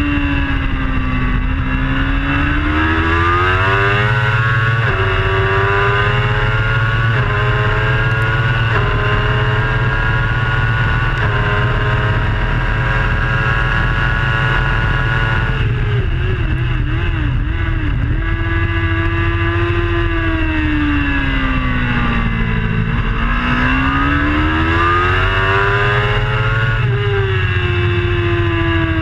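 Onboard sound of a racing superbike's engine at full race pace: the revs climb and step down with four quick upshifts in the first ten seconds or so, hold high, then drop and waver on the brakes with downshifts, and climb again out of the corner with another upshift near the end. Heavy wind rush on the microphone runs underneath.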